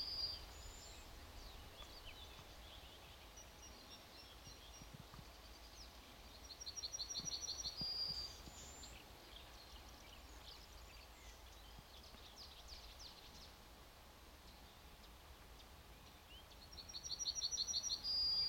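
A small songbird repeats a short song about every ten seconds: a quick run of even, high notes ending in a longer, higher note. Faint chirps sound in between over a steady low background rumble.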